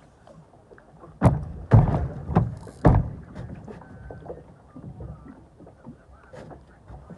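Water splashing: four loud splashes in quick succession over about two seconds, followed by smaller splashes.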